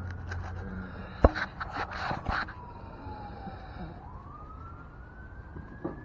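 A siren wailing faintly, its pitch sliding slowly down and then back up. Over it come sharp knocks and clatter, the loudest about a second in, with a few more over the next second or so.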